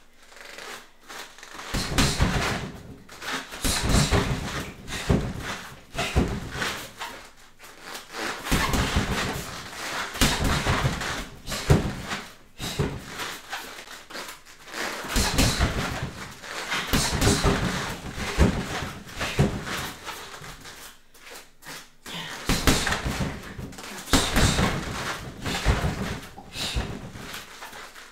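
Bare feet stepping, shuffling and thudding on foam floor mats during shadowboxing footwork and knee strikes, in repeated bursts of thumps about every two seconds with short lulls between.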